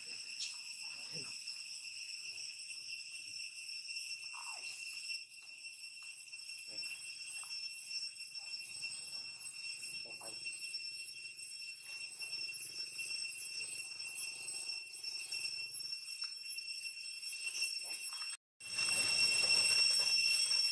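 Steady high-pitched insect drone, with faint soft clicks and smacks from a baby long-tailed macaque suckling at its mother's nipple. The sound cuts out for a moment near the end, then comes back louder.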